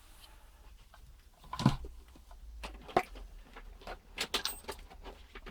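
Scattered clicks and knocks of handling plastic and metal parts, as a charger lead is connected to a repaired e-bike battery pack: a dull knock about a second and a half in, a single click at about three seconds, a quick run of small clicks a second later and a sharp click at the end.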